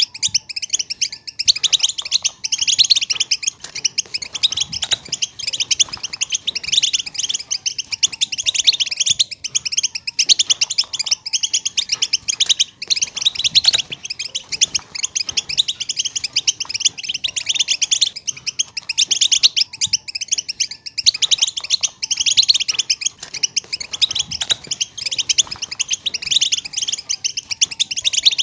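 A group of European goldfinches twittering together: a dense, unbroken chatter of rapid high notes.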